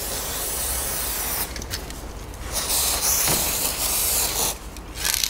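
Aerosol can of white lithium grease spraying onto an outboard's steering cable rod. It gives a hiss of about a second and a half, a brief puff, then a longer hiss of about two seconds.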